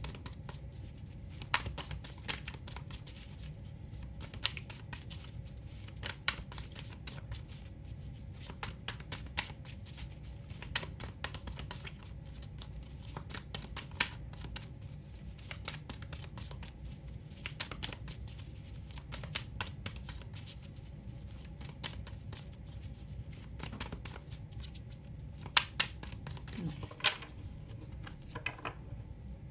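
A tarot deck being shuffled by hand: scattered short card clicks and rustles, irregular and continuing throughout, over a low steady hum.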